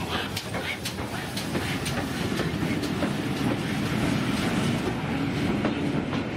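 Steam-hauled passenger train arriving, its coaches rolling past with wheels clicking over the rail joints. The clicks come mostly in the first half, and a steadier low rumble builds in the second half.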